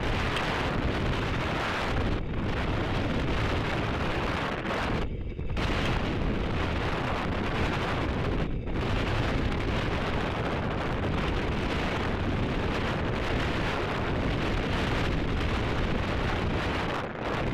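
Wind rushing over the onboard camera's microphone on a rocket descending under its parachute: a steady, loud rush that briefly drops away about three times.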